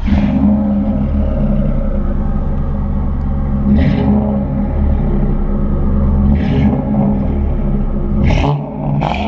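2000 Ford Crown Victoria Police Interceptor's 4.6-litre V8 breathing through newly fitted Flowmaster mufflers, catching suddenly at start-up and then running loud and steady, with a few brief higher flares in the exhaust note.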